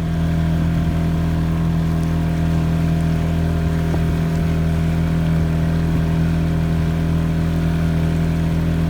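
A fishing boat's motor runs at a steady speed, an even engine drone that holds one pitch throughout.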